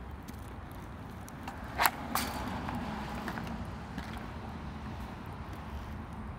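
Inline hockey: a sharp crack of a hockey stick hitting a street-hockey ball about two seconds in, with a second knock a moment later, over the steady rolling noise of inline skate wheels on asphalt.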